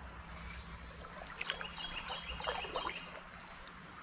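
Creek water running in the current, with a few brief splashes about a second and a half to three seconds in, as a hooked smallmouth bass is fought.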